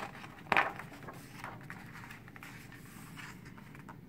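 A page of a paperboard picture book being turned by hand: one short paper swish about half a second in, then faint rustling of the pages.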